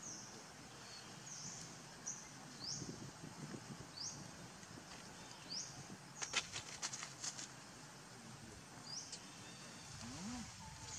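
Outdoor ambience with a short high chirp repeating about once a second, and a quick run of sharp clicks about six seconds in.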